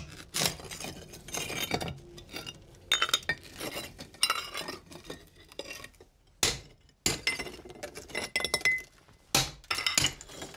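Cold chisel scraping and prying under terracotta hearth tiles, with broken tile pieces clinking and scattering. There are two louder sharp strikes, one about six seconds in and one near the end, where a small sledgehammer drives the chisel.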